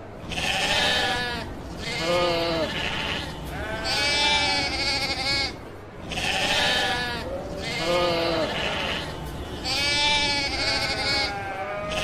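Sheep bleating over and over, one call after another with some overlapping, each bleat quavering in pitch.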